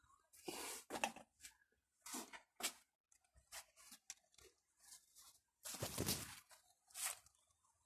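Plant leaves brushing and rustling against the phone's microphone as it pushes through the foliage, in a string of irregular scratchy bursts. The loudest comes about six seconds in.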